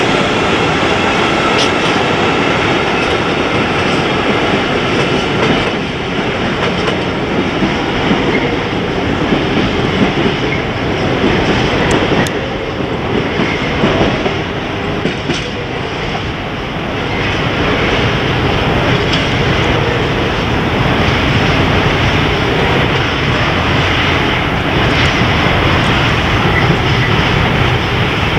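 Freight train of open wagons rolling past: a steady loud rumble and clatter of steel wheels on the rails, with a thin wheel squeal in the first few seconds.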